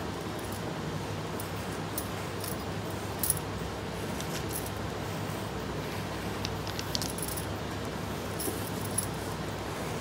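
Bangles on a drawing wrist clinking lightly now and then, a few small metallic ticks with the sharpest about three seconds in and near the end, over a steady low room hum.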